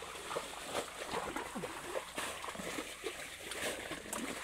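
Shallow muddy water splashing and sloshing in short, irregular bursts.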